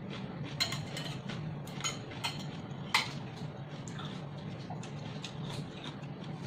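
Metal chopsticks clinking against a glass salad bowl as food is picked up: a few sharp separate clinks, the loudest about three seconds in, over a steady low hum.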